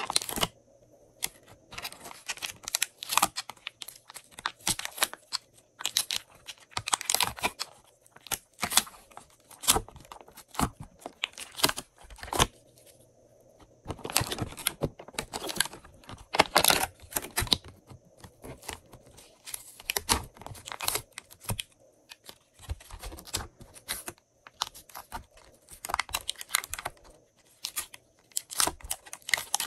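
Slime being pulled and peeled out of the compartments of a clear plastic tray, making irregular crackling, clicking and sticky tearing sounds in clusters, with a couple of short lulls.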